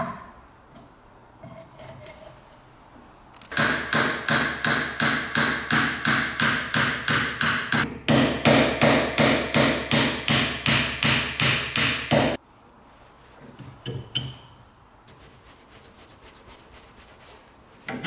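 Hammer blows in a fast, even run of about three to four a second, with a metallic ring, knocking old rusty nails out of a wooden board held in a vise. The run stops abruptly, and a few lighter knocks and a click follow.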